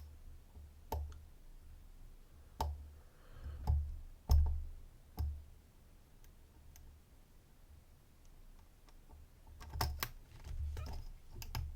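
Scattered small metallic clicks and taps of a pick and tension tool working the pins inside a DOM IX-HT dimple lock, irregular and a second or two apart, with a few closer together near the end.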